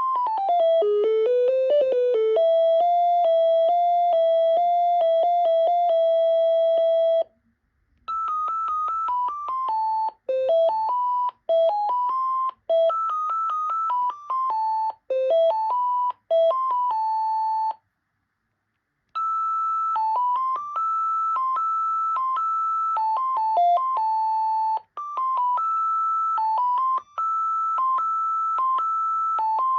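Panasonic KX-TCD440 cordless phone handset playing its built-in electronic ringtone melodies, one note at a time. One tune stops about seven seconds in and another starts; after a second break near eighteen seconds, a higher tune begins.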